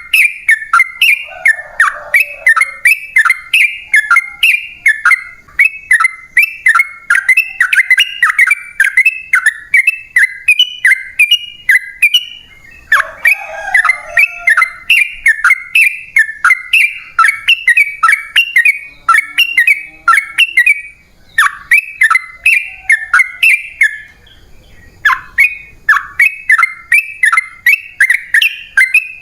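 Yellow-vented bulbul (trucukan) singing a long, rapid run of short bubbly notes, broken by two brief pauses. This is the loud, in-form 'gacor' song used as a lure to set other bulbuls singing.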